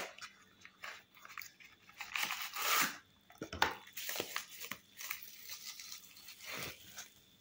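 A makeup palette in plastic bubble wrap being slid out of its cardboard box and handled: rustling and crinkling of packaging, loudest for about a second some two seconds in, with a few light clicks.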